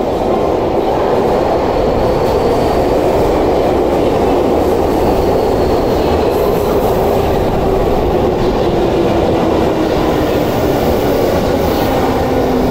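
Electric subway train running into an underground station platform, with loud, steady wheel and running noise. A whine falls steadily in pitch through the second half as the train's traction motors slow it down.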